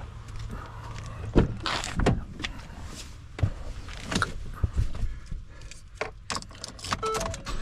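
Clicks, knocks and key jingling as someone gets into a car and handles the door and keys, with a few short tones near the end like a dashboard chime; the engine is not yet running.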